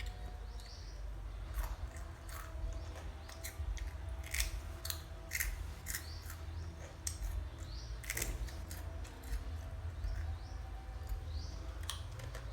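Scissors snipping in a run of irregular sharp cuts, with faint bird chirps and a low steady hum behind.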